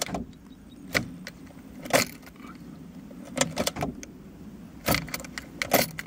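Car ignition key turned again and again, the keys on the ring jangling and sharp clicks coming about once a second over a steady low hum. The engine does not start: the thin 125 A jumper cable cannot carry enough current from the battery to the starter.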